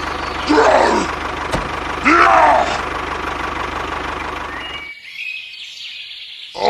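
Small engine running steadily with an even low pulse, cutting off abruptly about five seconds in. Two short voice-like calls, rising then falling, sound over it early on.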